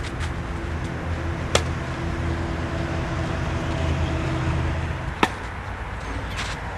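Tennis ball struck by racket strings in a clay-court rally: two loud sharp pops about four seconds apart, with fainter knocks of the ball between. A steady low rumble runs underneath and stops about five seconds in.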